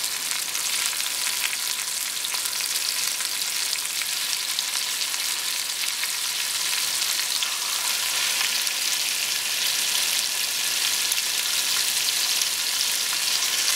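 Herb-rubbed country pork ribs sizzling and crackling as they sear in hot canola oil in an enamelled Dutch oven: the browning stage before braising. The steady sizzle grows a little louder as more ribs go into the pan.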